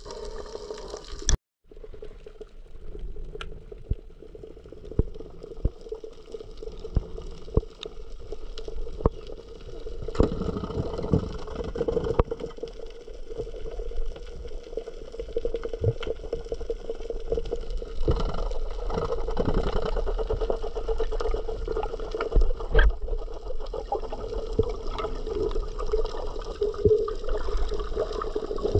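Water sloshing and bubbling with many scattered sharp clicks over a steady low hum.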